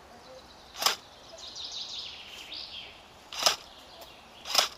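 Airsoft gun firing three single shots, each a sharp pop: one about a second in and two close together near the end. Between the first and second shots a bird chirps.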